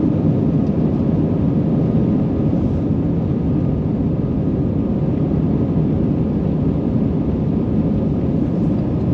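Airliner cabin noise from an Airbus A320's IAE V2500 turbofan engines during the initial climb after takeoff: a steady deep rushing sound with faint humming tones, unchanging throughout.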